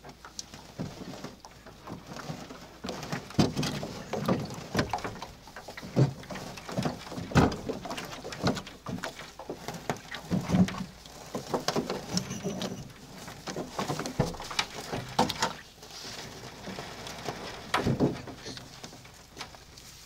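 Irregular knocks, clunks and footsteps on a thin aluminium boat hull as a Suzuki 9.9 outboard motor is lifted off and carried along the boat.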